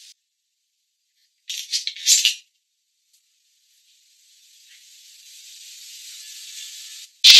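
A short rattling burst, then the faint hiss of meat sizzling on a lidded electric grill plate, growing slowly louder toward the end.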